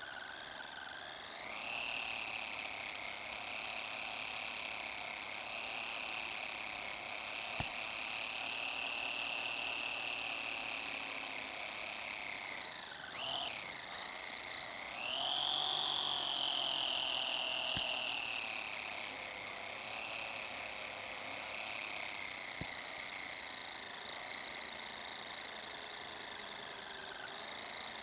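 RC car's motor and gears whining as it drives, over a hiss of tyres on asphalt. The whine climbs in pitch about a second and a half in as the car speeds up, drops sharply about halfway through and climbs again, then eases slowly lower toward the end.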